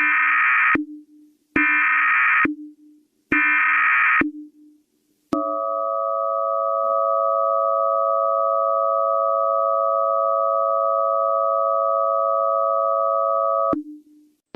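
Mock Emergency Alert System broadcast: three short bursts of SAME header data tones, each under a second, then the steady two-tone EAS attention signal held for about eight seconds before it cuts off.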